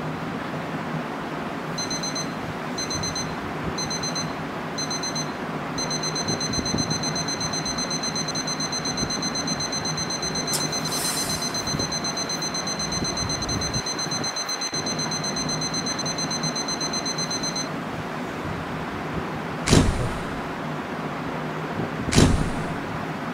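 Smartphone alarm beeping. It starts as short bursts of high beeps about once a second, then runs as continuous rapid beeping and stops abruptly after about 18 seconds, when it is switched off. Two sharp loud hits follow near the end, over a steady background hiss.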